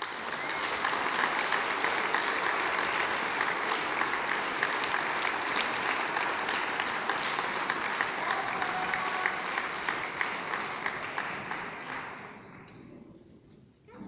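Audience applauding: a burst of clapping that starts all at once, holds steady for about twelve seconds, then dies away.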